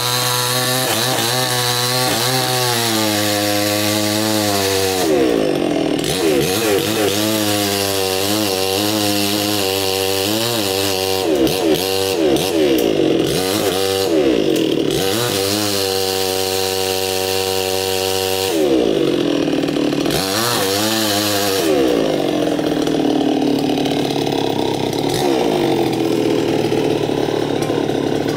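Stihl two-stroke petrol chainsaw running loud while cutting through a coconut trunk. The engine pitch rises and falls over and over as the saw is throttled and loaded in the cut, and sags lower for a few seconds about two-thirds of the way through.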